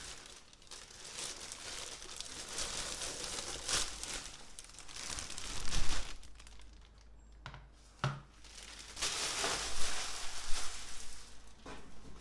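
Packaging being handled and unwrapped: irregular crinkling and rustling, with louder stretches about halfway through and again near the end, and a few small clicks.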